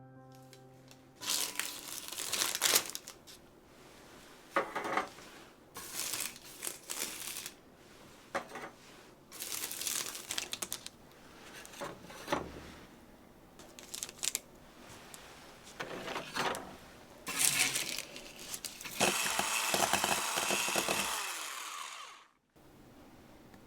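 Rustling and crinkling handling noises in separate bursts about a second long, then a steady hiss for about three seconds near the end that cuts off abruptly.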